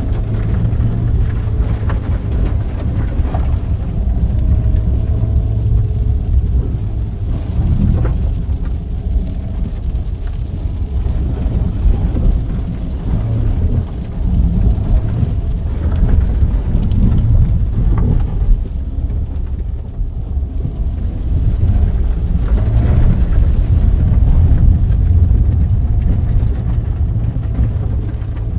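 VW Tiguan driving over a rough, rutted dirt track, heard from inside the cabin: a steady low rumble of tyres, suspension and engine, with occasional knocks as the car rides over the bumps.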